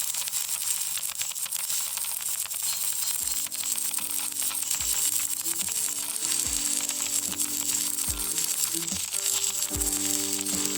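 Electric welding arc crackling and sizzling steadily as a weld bead is laid. Background music with a bass line comes in about three seconds in.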